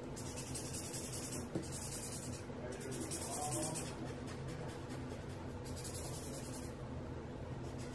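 Colorless Copic blender marker scribbled on scrap paper to clean the leftover pencil pigment off its nib. There are several scratchy strokes about a second each, with a longer pause in the middle.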